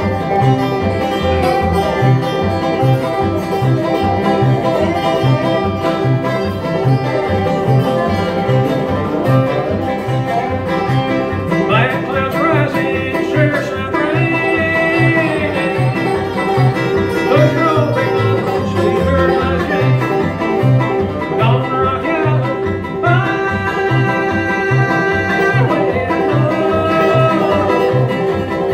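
Bluegrass band playing: a five-string banjo picking over an upright bass keeping a steady beat, with acoustic guitar. A man sings lead in two stretches, about twelve seconds in and again later on.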